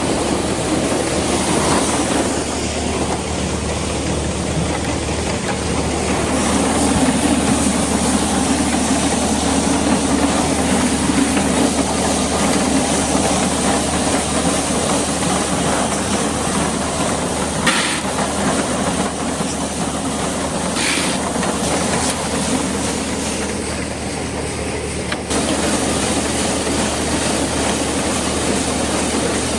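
Vintage SuperB grain dryer running with its tractor, a steady loud mechanical drone with hum and hiss, and one sharp click about two-thirds of the way through.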